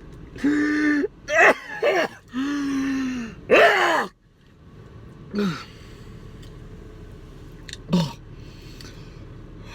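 A man's wordless groans and gasps of disgust at the taste of food he has just bitten into: several loud, drawn-out moans in the first four seconds, then two short falling grunts, over a steady low hum.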